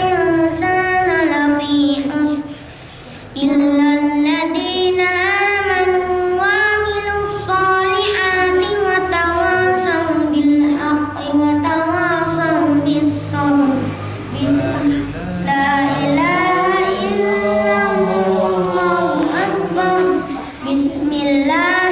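A boy reciting the Qur'an in Arabic in the melodic tilawah style, holding long ornamented notes that glide up and down, with a short breath pause about two seconds in.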